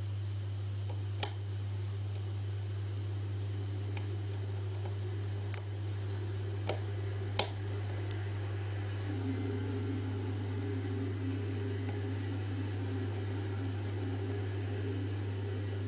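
Lock pick and tension wrench working in a 5-pin SC1 pin-tumbler cylinder: a few sharp clicks, the loudest about a second in and again about seven seconds in, over a steady low hum.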